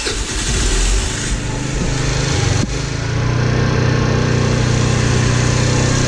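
Small scooter engine just started and running, with a brief dip about two and a half seconds in before it settles into a steady idle. It started right up after sitting unplugged through the fork swap.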